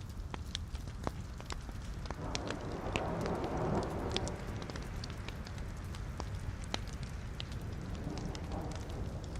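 Wood logs burning in a fireplace, crackling with frequent sharp pops over a low steady rumble of flame. A louder rushing hiss swells for about two seconds a couple of seconds in, then settles.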